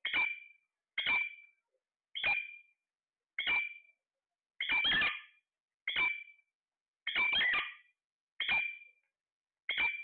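Alexandrine parakeet calling over and over: nine short, high calls, about one a second.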